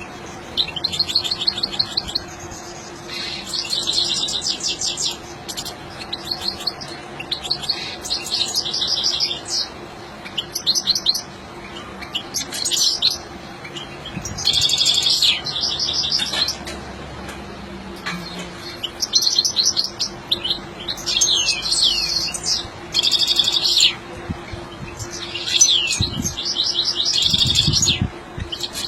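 European goldfinch singing: bursts of fast, tinkling twittering trills and quick sweeping notes, in phrases of a second or two with short pauses between them.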